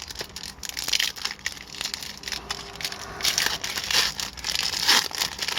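A hockey card pack's foil wrapper being torn open and crinkled, with irregular crackling and short clicks, busiest in the second half.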